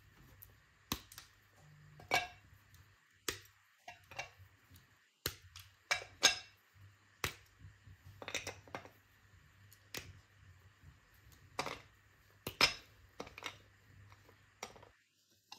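A 200 g Choceur Feine Weisse white chocolate bar being broken into squares by hand: an irregular run of sharp snaps and clicks.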